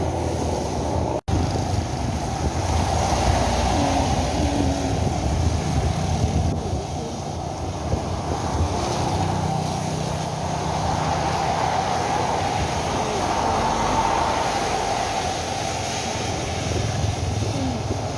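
Steady wind noise rushing over the microphone while riding a bicycle, with the sound cutting out for an instant about a second in.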